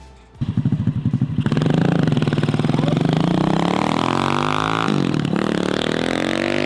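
Lifan 200cc single-cylinder four-stroke engine of the go kart accelerating: it starts abruptly about half a second in, and its note climbs steadily. The note drops briefly about five seconds in, then climbs again.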